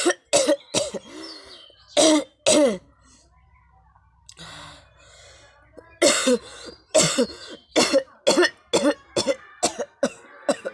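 A person coughing on purpose for a coughing challenge: about five hard coughs, a pause of about three seconds, then a fast string of about a dozen more. She has said the forced coughing is making her throat sore.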